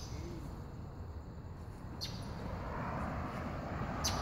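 Outdoor street ambience picked up by a phone carried while walking: a steady low rumble of wind and handling noise, a few sharp ticks, and a hiss of passing traffic that swells in the second half.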